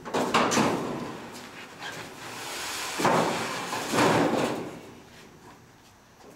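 Sheet-metal body parts of a 1965 Chevy C-10 being slid and set down on a wooden trailer deck: three sudden bangs with scraping, one just after the start and two close together about three and four seconds in.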